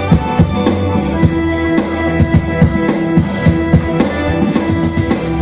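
Background music with a steady drum-kit beat over held notes.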